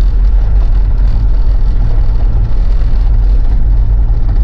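Cabin noise of a diesel Mitsubishi Pajero being driven over a bumpy, snowy and icy road: a loud, steady low drone of engine and tyres.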